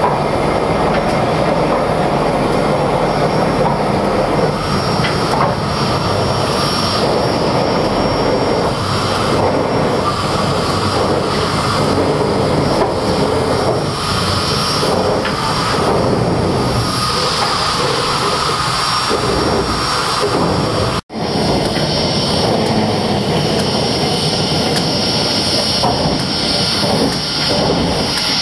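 Pere Marquette 1225, a 2-8-4 Berkshire steam locomotive, standing under steam as it turns on the turntable: a loud, steady roar and hiss of steam. The sound breaks off for an instant about three quarters of the way through, then carries on the same.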